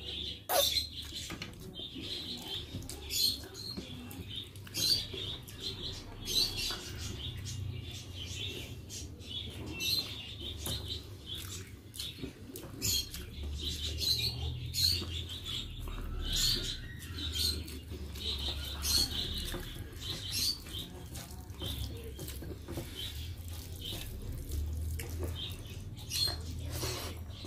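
Close-up eating sounds: wet chewing and lip smacks as rice is eaten by hand, with fingers squishing and mashing soft rice against a metal plate. Short, irregular clicks come several times a second over a low steady hum.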